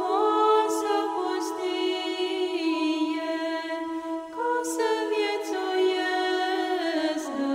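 Unaccompanied choir singing slow Orthodox chant in long, held notes that move gently in pitch, several voices sounding together.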